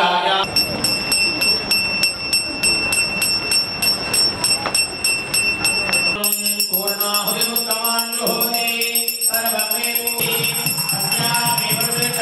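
A puja hand bell rung rapidly and steadily, its ringing struck about five times a second. About six seconds in, devotional singing with music comes in over the continuing bell.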